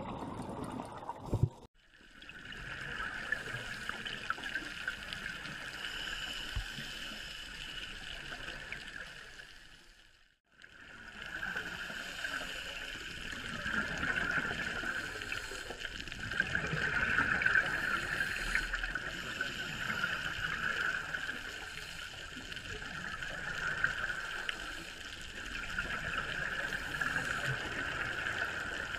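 Underwater ambient noise picked up by a diving camera: a steady, muffled hiss of water, cutting out briefly twice, near the start and about a third of the way through.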